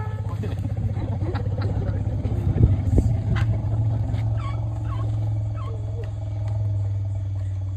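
Asian elephants rumbling: one long, steady low rumble, with a couple of sharp knocks about three seconds in.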